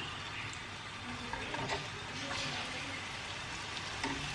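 Oil sizzling steadily with small scattered crackles as rolled chapati taquitos shallow-fry in a pan.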